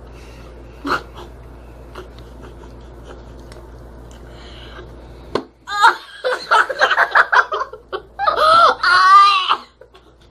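Two girls bursting into loud laughter and squeals about halfway through, reacting to the sour candy in their mouths. Before that there is only a low steady hum with a single click about a second in.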